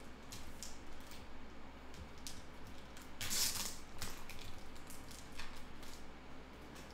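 Trading cards and their plastic packaging handled by hand: light taps and rustles, with one louder, longer rustle a little over three seconds in.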